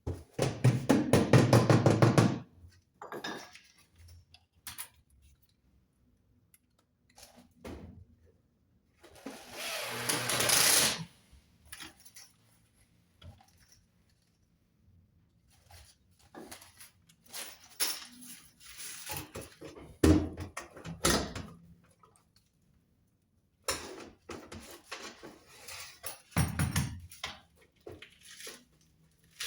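Metal clattering and knocks from tools and sheet-metal chimney parts being handled, in irregular bursts. A dense rattling burst comes at the start and a longer hissing scrape about ten seconds in.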